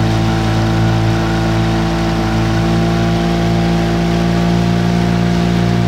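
Motorboat engine running steadily at a constant pace, holding an even pitch throughout.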